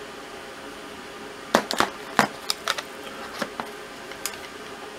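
A run of sharp hard-plastic clicks and knocks, about eight in two and a half seconds starting about a second and a half in, from polymer holster parts being handled and a revolver being set down on a plastic tray.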